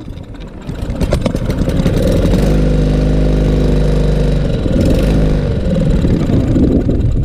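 Briggs & Stratton 625EX 150cc mower engine firing up about a second in and running, steady for a couple of seconds and then uneven and wavering. The owner suspects a carburetor clogged by old gas.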